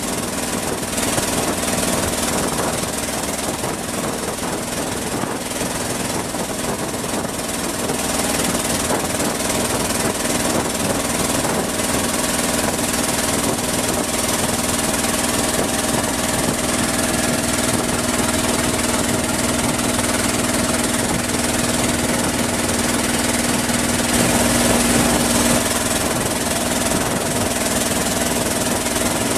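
Boat engine running steadily while under way, its even drone mixed with a broad hiss of water and wind.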